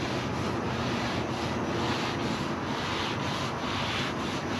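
An oiled paper towel held in tongs is rubbed back and forth over the hot steel of a Blackstone griddle, about three wiping strokes a second. This is the oil being spread thin to season the new griddle.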